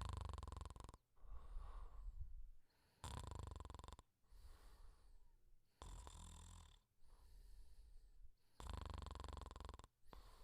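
Quiet, slow, regular snoring. Four rattling snores of about a second each, roughly every three seconds, each followed by a softer, breathy breath.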